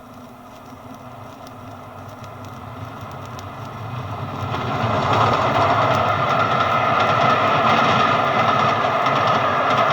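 A British Railways Western Region train approaching, growing steadily louder over about five seconds, then running close by with a steady loud rush of wheels on rail.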